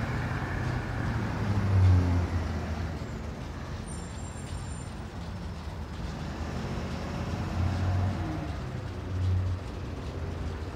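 EMD GP38-2 diesel locomotive idling: a low steady rumble that swells a few times.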